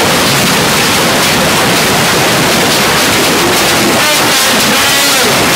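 Severe hailstorm: hail and rain pelting a swimming pool and patio in strong wind, a loud, dense, steady roar.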